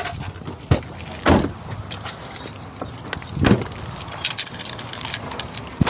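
Small metal objects jingling and clinking, broken by a few dull thumps about a second, a second and a half and three and a half seconds in.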